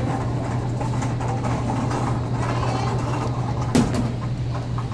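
Muffled rubbing and rustling of pocket fabric against a phone's microphone, over a steady low hum, with one sharp knock about three and a half seconds in.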